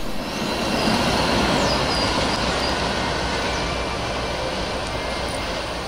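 Siemens 3000 series electric multiple-unit commuter train running away along the track, a steady rumble of wheels on rail that slowly fades.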